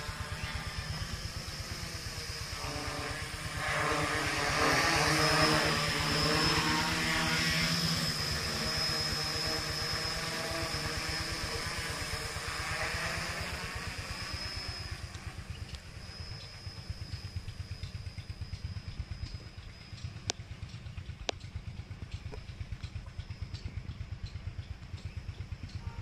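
F450 quadcopter's four electric motors and propellers buzzing overhead: a whine with several pitches that swells about four seconds in, then fades after about fourteen seconds as the drone climbs away.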